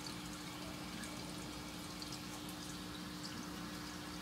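Aquarium filter running: a steady trickle of water with faint scattered drips and a low steady hum.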